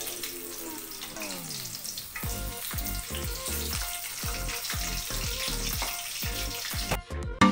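Hot oil sizzling steadily as a breaded pork cutlet deep-fries in a wok. Background music plays underneath, picking up a steady beat about two seconds in, and the sound drops out briefly near the end.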